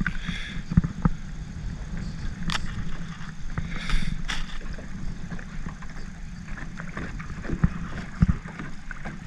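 Scattered knocks and taps from handling a freshly caught bluegill aboard a jon boat, over a steady low rumble.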